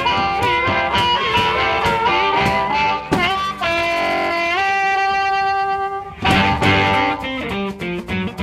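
Background rockabilly music with guitar and a steady beat.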